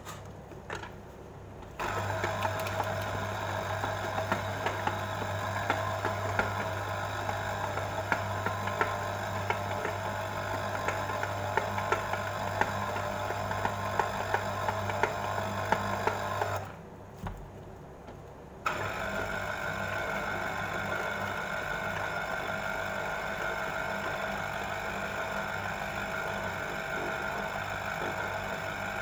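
Braun electric citrus juicer running with an orange half pressed onto its spinning reamer: a steady motor hum with fine ticking. It runs for about fifteen seconds, stops for about two seconds, then starts again and runs on.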